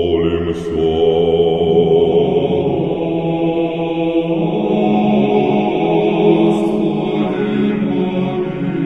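Slow chant of long held notes layered into a chord, with no clear words. The chord shifts about four seconds in and again near seven seconds.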